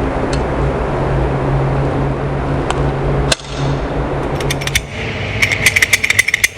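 A steady low hum of ventilation, then a quick run of sharp metallic clicks in the second half, about eight a second near the end, from the SAR 9X pistol being handled.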